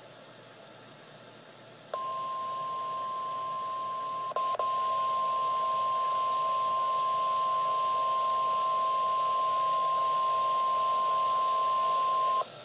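NOAA Weather Radio warning alarm tone, the steady single-pitch alert tone that comes before a warning. It starts about 2 seconds in out of radio hiss and drops out with a couple of clicks about 4.5 seconds in. It then returns louder and holds for about eight more seconds before cutting off.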